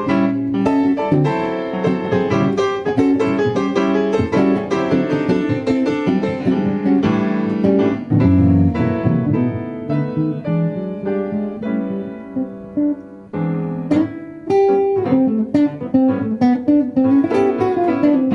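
Piano and guitar playing an instrumental blues passage, a busy run of notes that eases off briefly about two thirds of the way in before picking up again.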